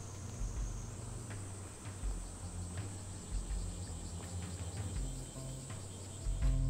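Insects chirring steadily, a continuous high-pitched drone, with a few faint knocks mixed in.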